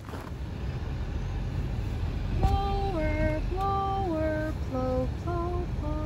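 Low, steady rumble of a car driving, heard from inside the cabin. About two and a half seconds in, a slow melody in a high singing voice comes in, its held notes mostly stepping downward.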